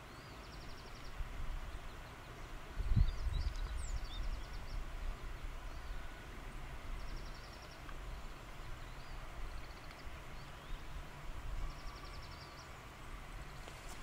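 Outdoor ambience with an uneven low rumble that is loudest about three seconds in. Over it, a faint, high, fast-pulsed trill repeats four times, every three to four seconds, with a few faint high chirps about four seconds in.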